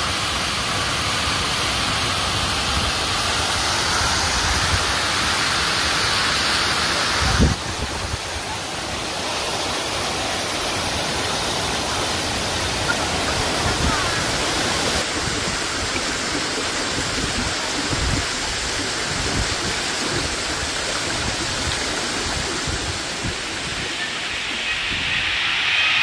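Waterfall pouring down a cliff into a pool: a steady rush of falling water. About seven and a half seconds in there is a brief thump and the sound changes.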